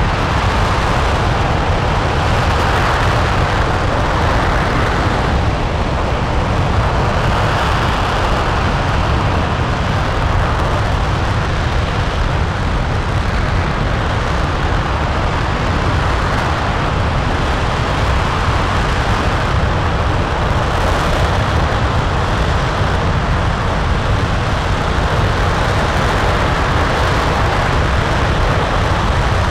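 RS-25 liquid-hydrogen/liquid-oxygen rocket engine (developmental engine E0525) firing during a hot-fire test. It makes a loud, steady, unbroken rushing noise with a deep rumble underneath.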